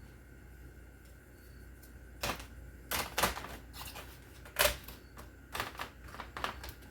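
Sharp plastic clicks and clacks as eggs and plastic egg containers are handled and fitted into place, about six separate knocks starting about two seconds in.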